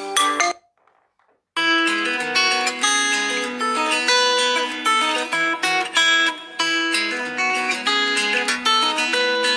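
Xiaomi Redmi 7A ringtones: one tune ends in the first half second, and after about a second of silence the next ringtone starts, a plucked acoustic guitar melody.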